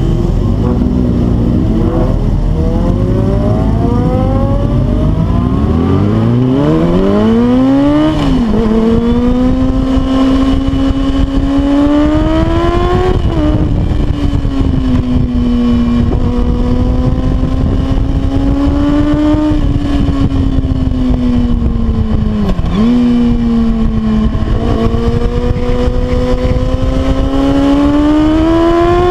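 Sport motorcycle engine accelerating, heard from on the bike: its pitch climbs in steps over the first several seconds, drops sharply about eight seconds in, then holds fairly steady, dipping with gear changes around thirteen and twenty-two seconds and rising again near the end.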